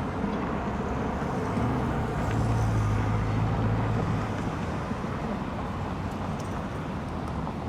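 Steady road traffic noise, with a vehicle engine's low hum growing louder about a second and a half in and fading again a few seconds later as it passes.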